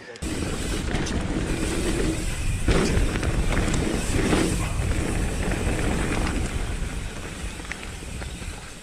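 Nukeproof Reactor 275 mountain bike descending a dirt trail: steady wind rush on the camera microphone with tyre noise and sharp rattles and clicks from the bike, loudest about three seconds in.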